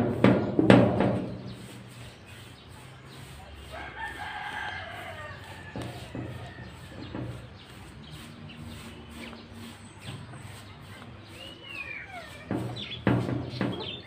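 A rooster crowing about four seconds in, over quieter scraping; loud brush scrapes and knocks on a corrugated galvanized-iron roof sheet in the first second and again near the end.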